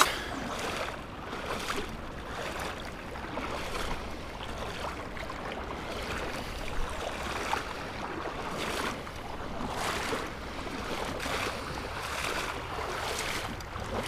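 Footsteps wading through a shallow river, a slosh and splash roughly every second over the steady rush of flowing water.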